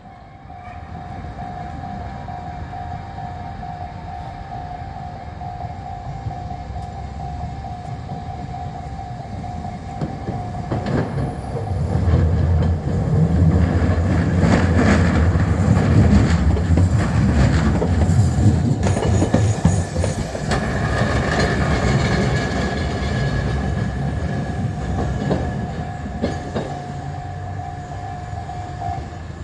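Two city trams passing each other at a level crossing: steel wheels rumble and clack over the rail joints, growing louder to a peak about halfway through, then easing off. The crossing's warning bell rings throughout and stops near the end.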